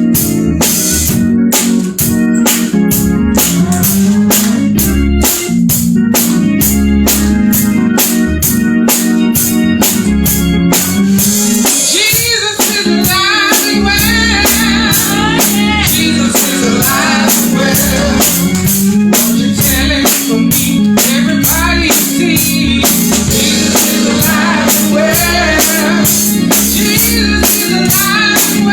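Church worship music with a steady drum-kit beat; singing voices come in about twelve seconds in.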